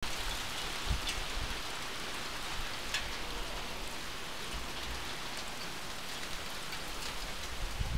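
Hail and rain pelting down in a steady hiss, with a few sharp ticks, the two clearest about one and three seconds in.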